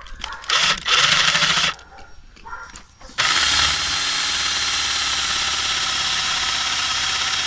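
Cordless drill driver boring into a hard oak log with a spade bit: a short run about half a second in, then a long steady run from about three seconds in. The bit cuts slowly; the drillers suspect the spade bit is dull.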